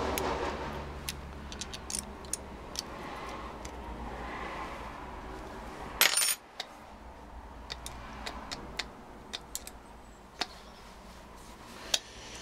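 Light metal clicks and clinks of a small ring spanner working the nuts on a Bosch starter motor's end cap, with one louder, ringing metal clank about six seconds in. A low steady hum runs underneath.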